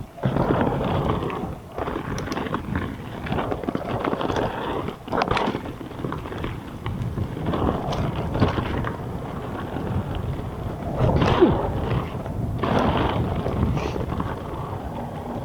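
Mountain bike riding fast down a dirt trail: tyres rolling over the ground with wind noise on the microphone and scattered knocks and rattles as the bike takes bumps.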